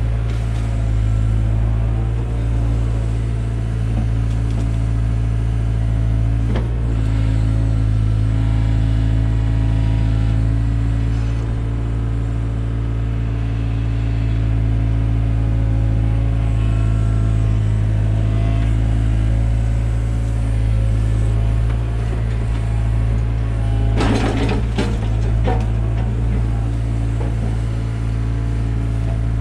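Takeuchi TB175 excavator's diesel engine running steadily at working speed, with a strong low hum. A brief knock comes about a fifth of the way in, and a cluster of knocks and clatter near the end.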